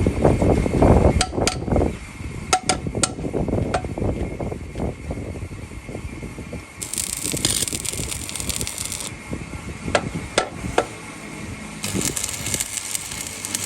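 Workshop clatter: scattered sharp metallic clicks and knocks, with two spells of high hiss.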